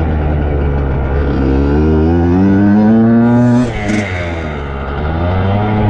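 Dirt bike engine revving up, its note climbing for a couple of seconds. Just past halfway the throttle shuts off with a brief rush of noise, and then the engine picks up and climbs again.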